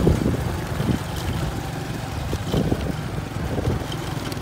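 A vehicle engine running steadily while wind rumbles on the microphone, with a few low thumps.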